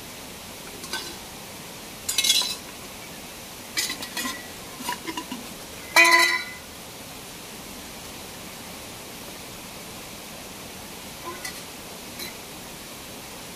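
Metal pots and utensils clinking and clanking in short clatters, the loudest about six seconds in with a brief metallic ring, over a steady rush of falling water.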